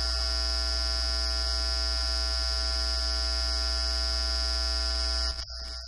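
Loud, steady electrical buzz: a low hum under a stack of fixed tones and a high whine, unchanging until it cuts off suddenly about five seconds in.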